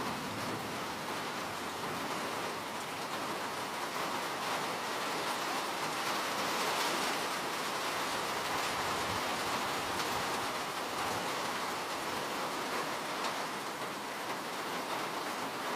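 Steady rain falling, an even hiss of many drops with faint individual ticks throughout.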